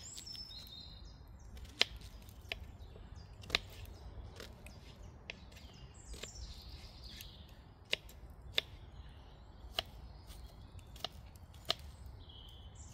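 A kitchen knife cutting an onion, about ten sharp, separate knocks of the blade through onto the board, spaced irregularly around a second apart. Small birds chirp faintly.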